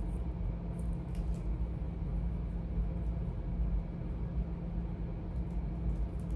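Steady low background hum, with faint light clicks and rustles of charging cords being handled about a second in and again near the end.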